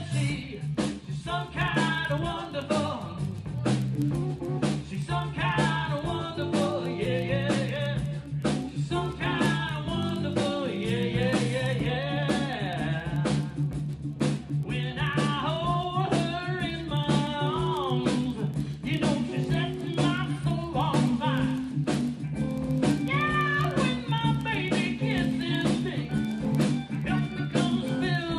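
Live band playing a blues-rock song: a voice singing over guitar, a walking bass line and steady drums.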